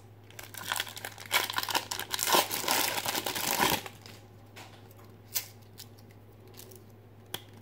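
A 1992 Fleer Ultra football card pack's wrapper being torn open and crinkled for about three seconds, then a couple of faint clicks as it is handled.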